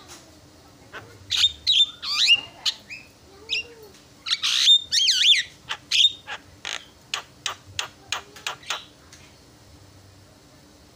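Javan myna calling at close range: a run of sharp whistles and harsh notes, with a loud wavering whistle about five seconds in, then a string of short clipped notes that stops about two seconds before the end. A faint steady hum lies under it.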